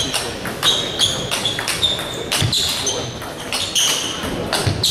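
Table tennis balls clicking on tables and bats, an irregular string of a dozen or so sharp knocks, each with a short high ring.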